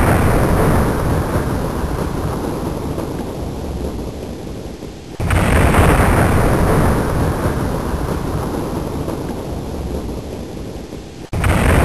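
A thunder sound effect, played again and again: a clap is already dying away, then another starts suddenly about five seconds in and a third near the end, each fading over several seconds.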